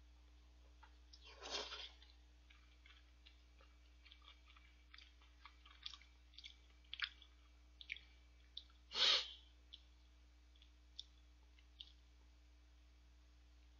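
A person eating udon noodles: two short slurps, about a second and a half in and, loudest, about nine seconds in, with soft chewing and small wet mouth clicks between them.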